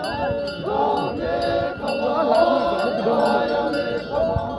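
A group of men chanting or singing together as they walk, many voices overlapping on long, wavering held notes. A light metallic clinking repeats at an even pace behind the voices.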